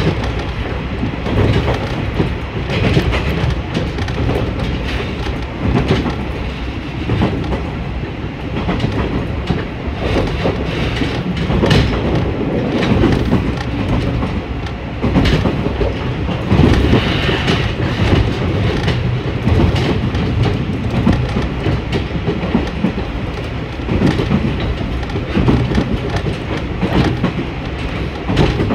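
A diesel railcar on the unelectrified JR Tsuyama Line running at speed, heard from inside the carriage: a steady low rumble of engine and running gear, with the wheels clicking irregularly over rail joints.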